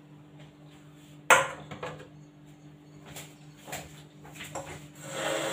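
Kitchenware being handled on a granite counter: one sharp knock about a second in, as a bowl or jug is set down, then several lighter knocks and clinks. A faint steady hum runs underneath, and a steady noise swells in near the end.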